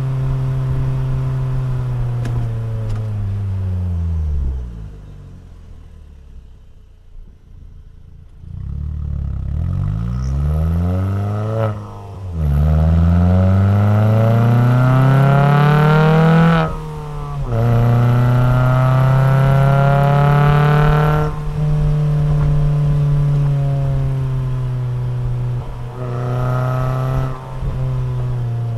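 Alfa Romeo 147 Twin Spark four-cylinder engine through a FORCE-G aftermarket exhaust. The engine note holds steady, then falls away about four seconds in as the throttle closes, and stays much quieter for a few seconds. It then climbs hard with rising pitch, breaking briefly at each gear change, holds a loud high note for a few seconds, and drops to a steadier lower note.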